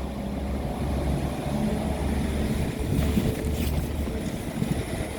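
Low, steady rumble of a diesel train engine running, with wind on the microphone.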